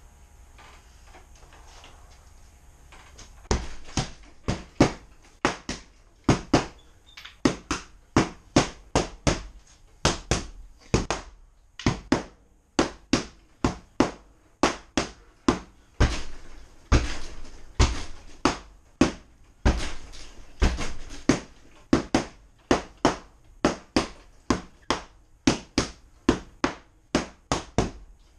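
Repeated strikes of a training baton against a hanging target, starting about three seconds in and going on at roughly two sharp hits a second, some in quick pairs.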